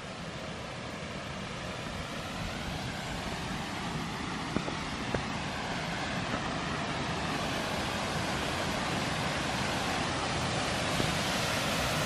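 Rushing water of a small waterfall pouring over a concrete dam: a steady hiss that grows louder throughout. Two faint clicks about four and five seconds in.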